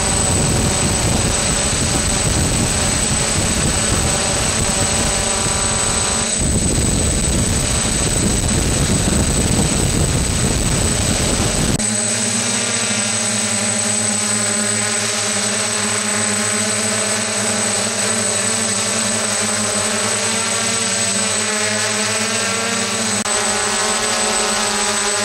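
An octocopter's electric motors and propellers whirring steadily, with buffeting wind on the microphone in the first half that stops abruptly about halfway through, leaving the motor hum with small wavers in pitch.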